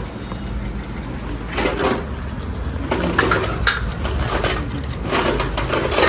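Royal Enfield Bullet 350 single-cylinder engine idling steadily, with a few brief louder sounds over it.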